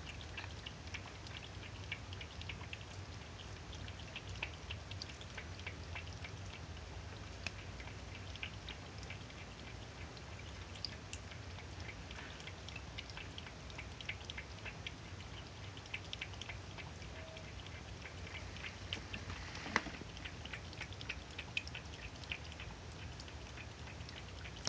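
Cat lapping water from a bowl: a steady run of small wet clicks, several a second, with one sharper click about twenty seconds in.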